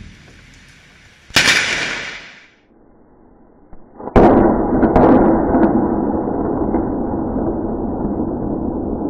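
Thunderclap from a very close lightning strike: a sharp crack about four seconds in, at the flash, then a loud continuous rumble. About a second and a half in, a brief loud hiss comes and fades.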